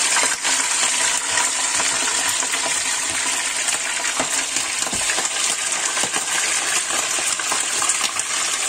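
Pieces of croaker fish frying in very hot olive oil: a steady sizzle full of small crackles and pops.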